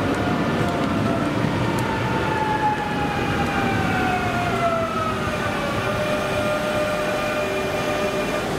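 CP suburban electric multiple unit running along the platform, its traction motors whining in several tones that slide slowly downward as the train slows, over the rumble of wheels on the rails.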